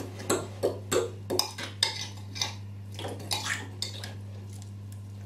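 A utensil stirring thick, sticky banana bread dough in a glass Pyrex bowl, with irregular clinks and scrapes against the glass as extra flour is worked in.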